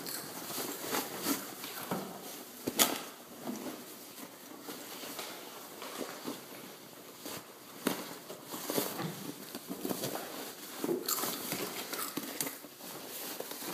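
Cloth diapers rustling and shifting as they are tipped from a fabric pail liner into a clothes dryer drum, with scattered knocks and clicks. The sharpest knock comes about three seconds in, and another near eight seconds.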